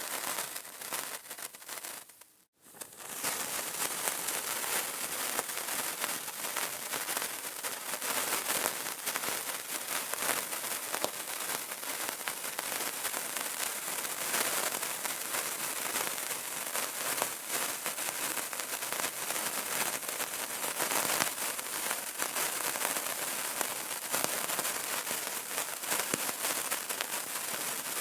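Burning candle crackling: a steady run of dense small pops and crackles over a soft hiss. It drops out briefly about two and a half seconds in, then carries on.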